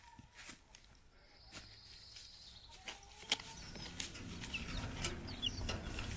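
Faint ambience of chickens in a wire pen: scattered clicks and scratches, with a few short high chirps in the second half over a low rumble that grows louder.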